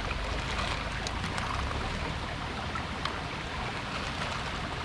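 Steady rushing of running water, with a few light ticks scattered through it.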